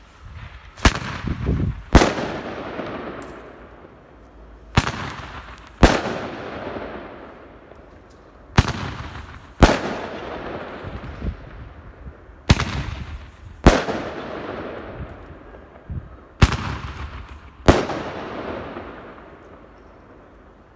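A Mesterens rør five-shot firework mortar tube firing all five shots, about four seconds apart. Each shot is a launch bang followed about a second later by the louder burst of the shell, which trails off in a fading hiss.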